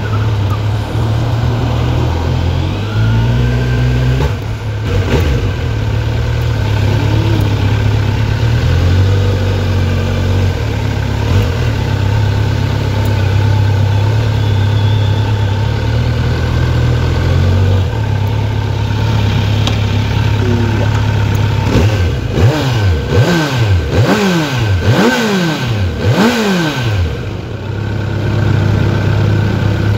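Kawasaki Z900's inline-four engine on its stock exhaust, running at low, fairly steady revs while the bike is ridden slowly. Near the end it is blipped about five times in quick succession, each rev rising and falling back.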